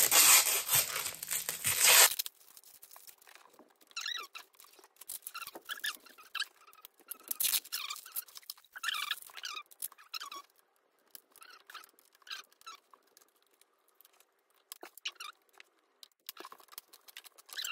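Plastic packaging crinkling loudly for about two seconds, then quieter scattered scraping, clicks and short squeaks as a plastic tub is worked open, with a screwdriver prying at its plastic lid near the end.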